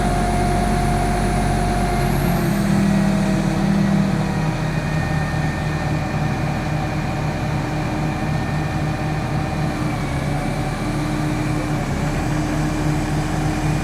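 A heavy engine running steadily, its pitch shifting and briefly louder about two to four seconds in.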